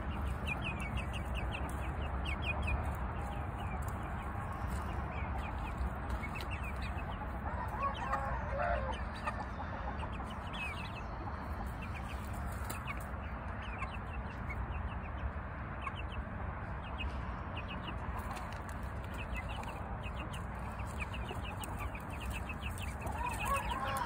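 Chickens clucking in a pen, with many short high peeps scattered throughout and a louder call about eight seconds in, over a steady low background rumble.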